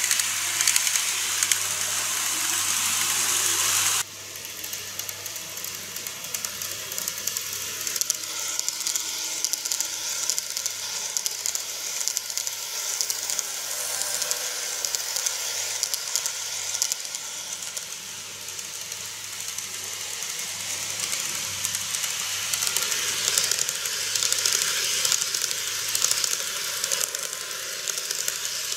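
Model electric trains running on track, a steady hiss of wheels and motors rolling along the rails. The sound drops suddenly about four seconds in to a quieter, even rolling noise from another passing train.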